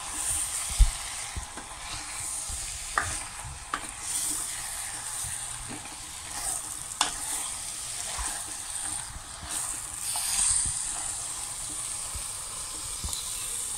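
Chicken pieces frying in spiced oil and masala in a stainless steel pressure cooker, with no water added, sizzling steadily as a spoon stirs and scrapes through them. A few sharp knocks of the spoon against the pot come through the sizzle.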